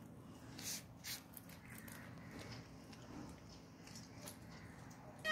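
Cat chewing raw fish: faint, short, sharp crunching clicks, the two loudest about a second in.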